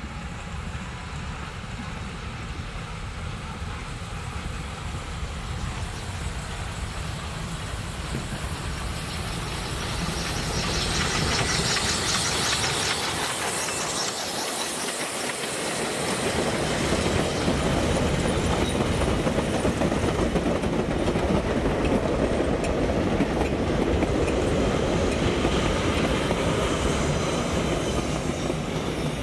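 Steam locomotive with a goods train approaching and passing close by, its sound growing louder and peaking in a high rush as the engine goes past about twelve seconds in. Then come the steady rumble and clickety-clack of freight wagons rolling past on the rails.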